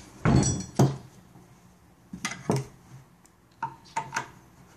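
Steel parts of a Japanese Type 11 light machine gun knocking and clinking as the barrel in its finned barrel jacket is lifted and fitted to the receiver: a loud ringing clank just after the start and another knock a moment later, then lighter knocks and clicks.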